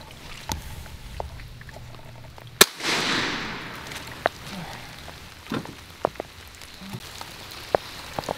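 A single sharp bang about two and a half seconds in, trailing off in an echo over about a second and a half. Scattered light clicks and knocks around it.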